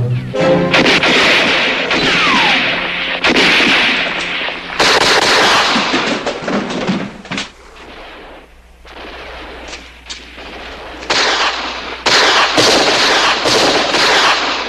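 Rapid gunfire in long volleys of many cracking shots. The firing slackens for a few seconds past the middle, then comes back hard near the end.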